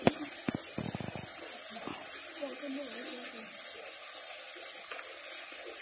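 Steady rush of a small waterfall pouring into a pool, with a few soft clicks and knocks in the first second or so.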